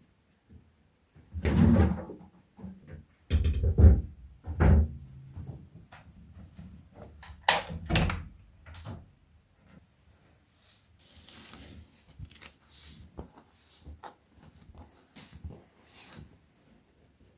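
Irregular knocks, thumps and handling noises, loudest about two, four and eight seconds in, then fainter clicks and rustling.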